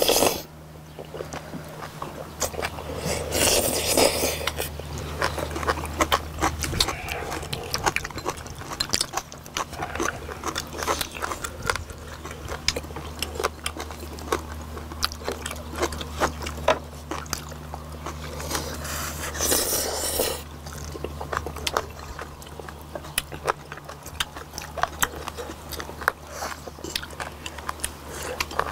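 Close-miked chewing and biting of spicy braised warty sea squirts (mideodeok) with bean sprouts: many small wet clicks and smacks as several people eat. Two longer, louder noisy sounds come about four and twenty seconds in, over a steady low hum.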